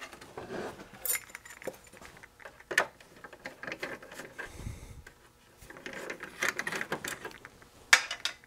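Screwdriver backing out the corner screws of a power supply's perforated metal bottom cover: scattered small metallic clicks and clinks, with a dull thump about four and a half seconds in.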